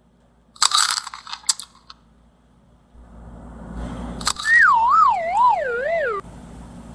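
A cartoon-style whistle sound effect that warbles up and down about twice a second while sliding down in pitch, then cuts off suddenly. Before it come a brief crackly burst and a rising hiss ending in a click.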